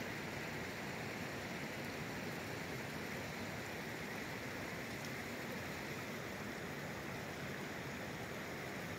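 Faint, steady rush of a flowing stream, even throughout.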